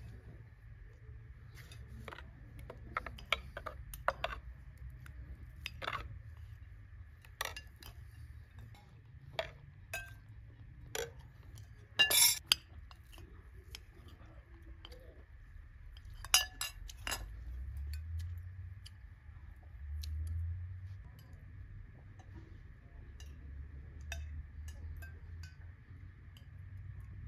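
Metal spoons and forks clinking and scraping on ceramic plates as people eat, in scattered sharp clinks, the loudest about twelve seconds in and again around sixteen to seventeen seconds in. A faint steady high tone runs underneath.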